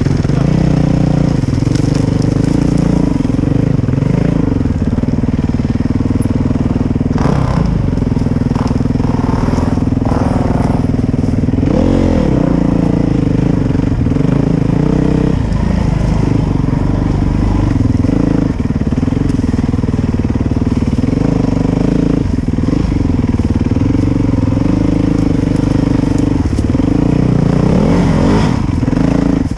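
Dirt bike engine running continuously on a trail ride, its pitch rising and falling several times as the throttle is worked.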